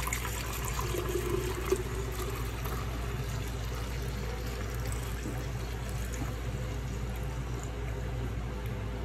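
Pre-mixed coolant, cutting oil diluted in water, pouring in a steady stream from a jug into a clear plastic canister, filling it. A steady low hum sits underneath, with one short knock just under two seconds in.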